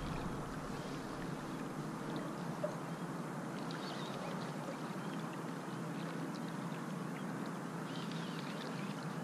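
Steady low noise of wind and river water around a small boat, with a faint steady hum and a few faint high clicks about four seconds in and again near the end.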